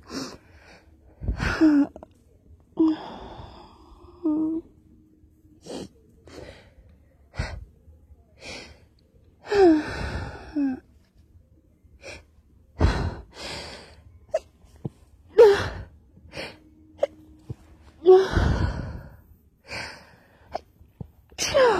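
A person sneezing again and again while trying to stifle the sneezes: sharp catching gasps, some with a short falling voiced pitch, each followed by a clamped, muffled sneeze burst. About five bigger gasp-and-sneeze fits come through, with many smaller sharp bursts between them.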